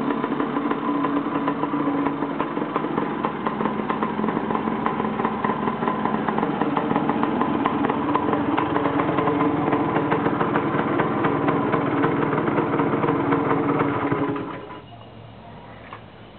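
Engine of the RX running at a steady speed with a fine rapid rattle in its note, then switched off about fourteen seconds in, leaving only faint background noise.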